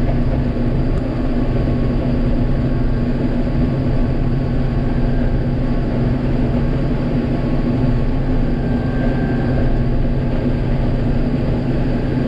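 Combine harvester running steadily during oat harvest: a constant machine drone with one steady hum tone.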